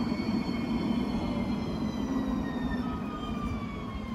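Alstom Citadis 305 tram passing at low speed: a steady rumble of wheels on rail under a whine of several high tones that slowly fall in pitch.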